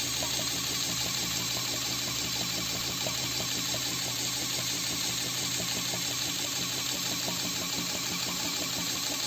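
Homemade syringe air pump running: a small yellow plastic DC gear motor turning a crank that pumps a syringe piston, giving a steady whir with fast ticking.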